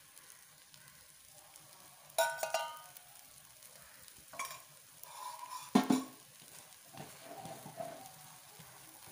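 Egg omelette frying in oil in a pan with a low sizzle, while a spoon and spatula press and scrape it against the pan in several short bursts, the loudest about six seconds in.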